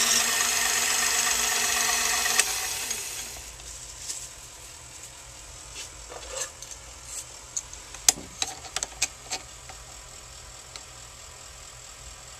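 Small metal lathe running steadily, its motor humming under a high hiss, while turning an aluminium bar-stock blank. About two and a half seconds in it is switched off with a click and spins down. After that come scattered light clicks and taps of metal being handled.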